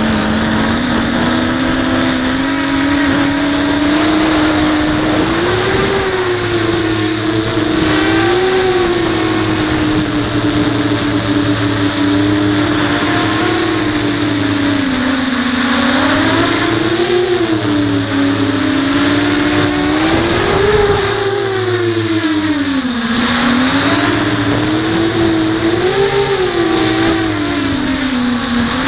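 Five-inch FPV quadcopter's brushless motors and propellers whining, the pitch rising and falling again and again with the throttle.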